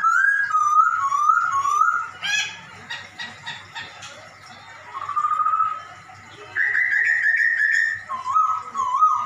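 Poksay Hongkong laughingthrush singing phrases of repeated whistled notes that slide up and down, with fainter high chirps above them. There is a quieter stretch near the middle, after which the phrases resume.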